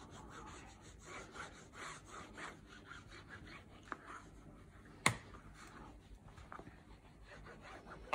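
Bone folder rubbing over glued tartan fabric on a paper page, smoothing it down in repeated short strokes, with one sharp tap about five seconds in.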